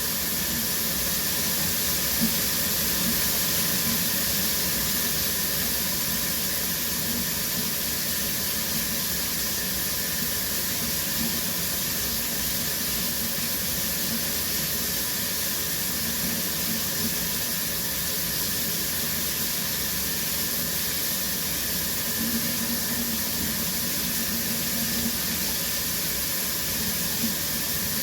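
Shower running steadily: a constant hiss of water spraying and falling, with a few small splashes standing out.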